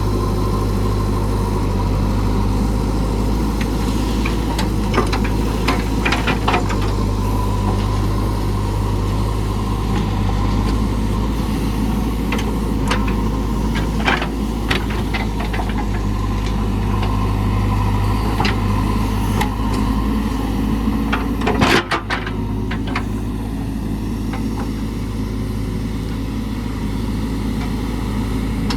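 JCB 3DX backhoe loader's diesel engine running steadily, with scattered sharp cracks and knocks from the machine at work, loudest in a cluster a little over twenty seconds in.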